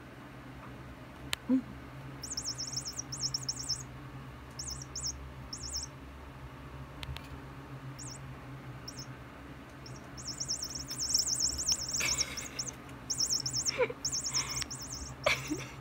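Battery-powered mouse toy chirping in rapid high trills, in short bursts on and off as the kittens bat and grab it, with a few soft scuffles of paws and bodies on carpet in the second half.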